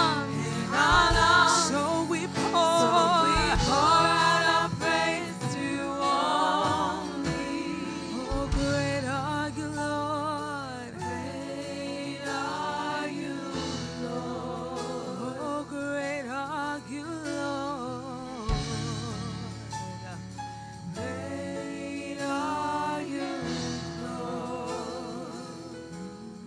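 Live gospel worship music: singers holding notes with a wavering vibrato over band accompaniment, getting softer toward the end.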